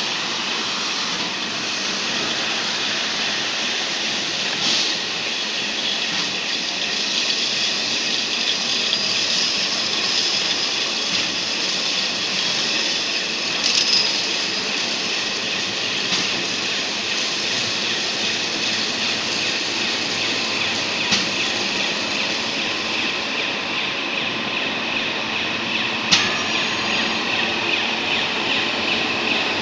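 Submerged-arc welding equipment running: a steady whirring hiss with a faint high whine, broken by a couple of sharp clicks in the last third.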